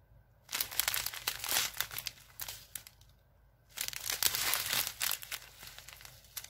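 Small clear plastic bags of diamond-painting resin drills crinkling as they are handled, in two bouts: one starting about half a second in and lasting around two seconds, and another starting near four seconds in, with quiet between them.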